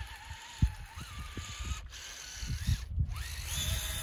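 Electric motor of a Traxxas TRX-4 RC crawler on snow tracks whining as it climbs, the pitch wandering and stepping up with the throttle, over low irregular thumps and rumble.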